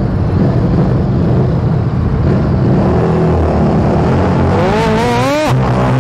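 A Harley-Davidson cruiser's V-twin engine revving hard in a road tunnel during a burnout attempt. It holds a heavy, steady rev, and near the end the pitch climbs sharply before cutting off suddenly.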